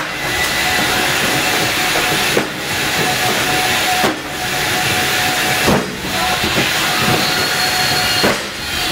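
A loud, steady hiss that dips briefly about four times, with faint knocks of cardboard boxes being lifted and set down on a roller conveyor.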